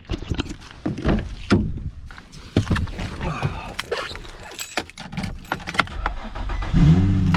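A run of clicks and knocks, then near the end the 2004 Infiniti G35x's 3.5-litre V6 cranks briefly, catches and settles into a steady idle. The car is starting again now that a cracked battery terminal has been replaced.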